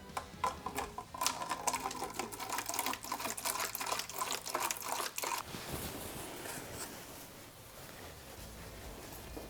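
Distilled water poured from a jug into a temporary filler on a rebuilt engine to flush it. It glugs in rapid irregular pulses for about five seconds, then goes on as a softer, steady pour.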